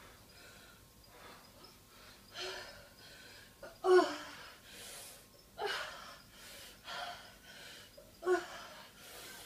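A woman breathing hard and gasping during a workout: about five heavy breaths roughly a second and a half apart, some of them voiced with a short falling tone, the loudest about four and eight seconds in.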